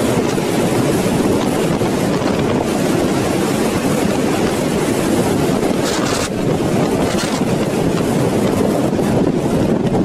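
Strong wind blowing across the microphone: a loud, steady rushing noise.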